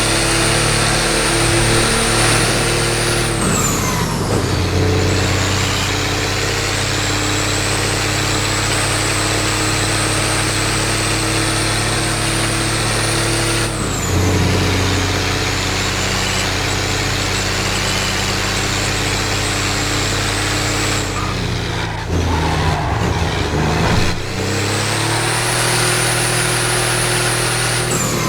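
Mercedes-Benz OM352 inline-six diesel engine pulling steadily. Its pitch drops sharply a few seconds in and again about halfway, as at gear changes, then settles at each new level. Toward the end it falls away and wavers, then climbs again.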